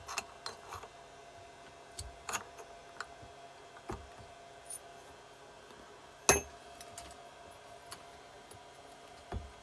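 Scattered metallic clicks and clinks of hand tools and small engine parts being handled, with one loud, sharp, ringing clink about six seconds in and a duller knock near the end.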